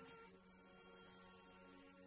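Very soft passage of a string orchestra: several bowed notes held together as a quiet sustained chord, easing slightly toward the end.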